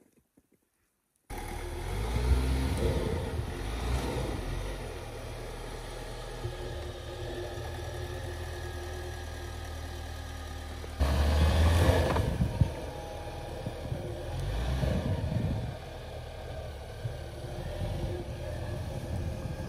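A vehicle engine running steadily with a low drone. It starts abruptly about a second in and grows suddenly louder about eleven seconds in.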